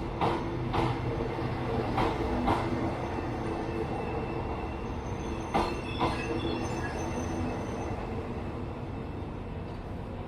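A train rolling slowly through the station, its wheels knocking over the rail joints in pairs about half a second apart, three times. Under the knocks runs a steady low rumble, and a faint high wheel squeal sounds in the middle.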